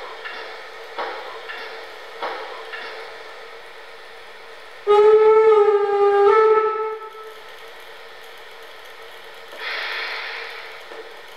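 Sound system of a Märklin gauge 1 BR 44 model steam locomotive playing through its built-in speaker: a few rhythmic puffs about twice a second, then a long two-part steam whistle about five seconds in, and a burst of steam hiss near the end, all over a steady hum.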